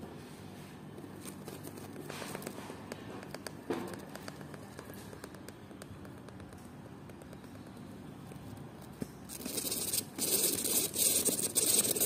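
Hamster gnawing and scratching at the wall of its enclosure: rapid small clicks and scrapes, turning into a much louder, harsh scrabbling about nine seconds in.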